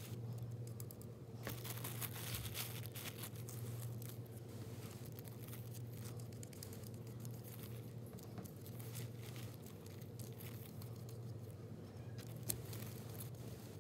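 Faint crinkling and rustling of thin translucent paper scraps being handled and brushed down onto cardboard with a paintbrush, as scattered small crackles over a steady low hum.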